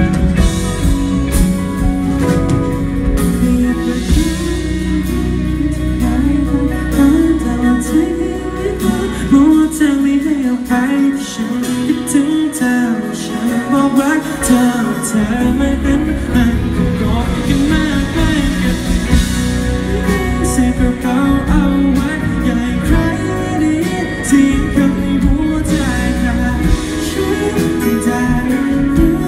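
Live band playing a pop-rock song with male lead vocals over electric guitars, bass guitar, drums and keyboard. The bass and drums fall away for a few seconds about a third of the way in, then come back in.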